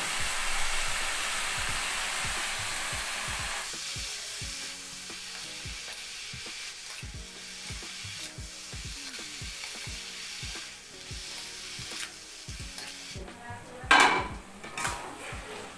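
Vegetable strips sizzling in hot oil in a blackened kadai, stirred and scraped with a spatula; the sizzle is loud for the first few seconds and then dies down. A single sharp clank of metal near the end.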